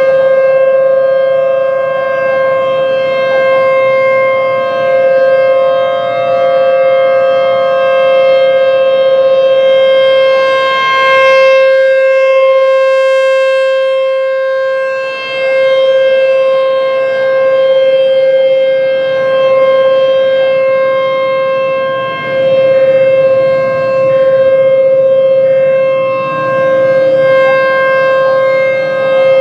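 American Signal T-128 rotating electromechanical warning siren sounding a steady, unbroken tone in a full-length tornado-drill test. Its loudness swells and fades every few seconds as the horn turns.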